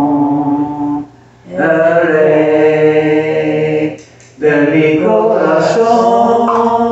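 Spanish-language worship song: a singing voice holds three long notes, broken by two short pauses, as the song draws to its close.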